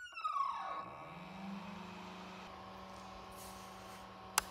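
A large electric fan switching on and spinning up: a brief falling whine, then a hum that rises in pitch over about a second and a half and settles into a steady drone. A single sharp click near the end.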